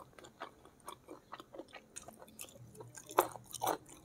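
Close-miked chewing of spicy stir-fried squid: a run of small, wet mouth clicks, with a few louder ones near the end.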